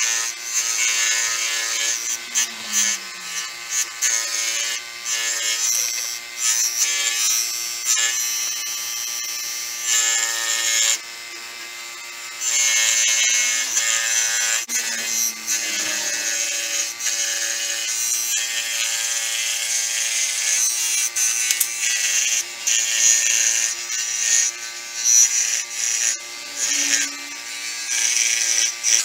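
A small electric power tool running steadily at one pitch, with a hiss that comes and goes as it works the piece. The hiss drops out for a moment about eleven seconds in.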